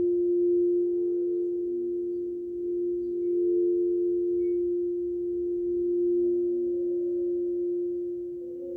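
A gong played softly with a mallet, together with a set of metal sound tubes, ringing in one steady held tone with fainter overtones above and below it that swell and fade every few seconds.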